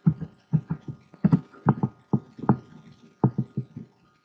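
A quick, irregular run of about a dozen short clicks and knocks from a computer mouse being clicked and handled while a picture is dragged into place.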